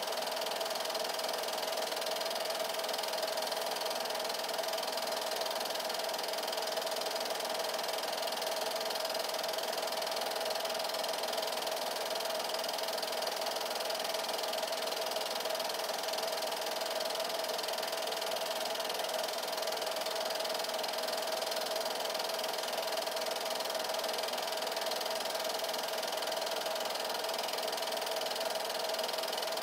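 8mm film projector running steadily: a constant hum over an even hiss, with no change throughout.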